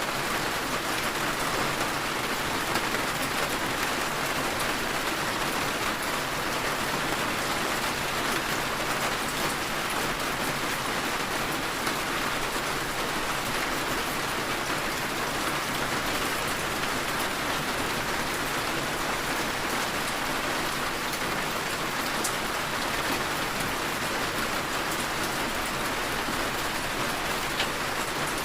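Heavy rain falling steadily: a dense, even hiss with fine scattered drop ticks, and one sharper tick near the end.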